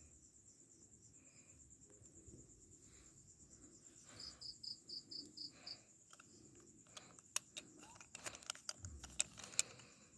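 Crickets trilling steadily in a high continuous pulse. About four seconds in, a quick run of seven short high chirps; in the last few seconds, a scatter of sharp clicks.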